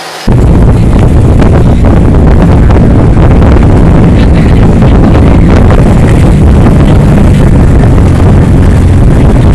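Lobster boat engine running hard at full throttle at racing speed, with wind buffeting the microphone. The sound comes in suddenly just after the start and stays loud and steady.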